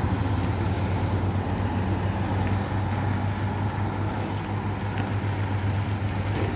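Heavy diesel bus engine pulling steadily, a low even drone with a fast throb.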